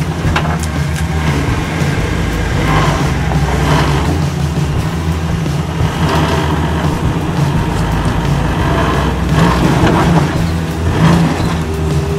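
A lifted Jeep Wrangler's engine running under load and revving as the Jeep crawls up a rock ledge, with louder surges near the end.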